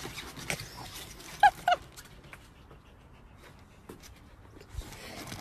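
A small dog gives two short, high yips in quick succession about a second and a half in, with scattered faint taps and clicks around them.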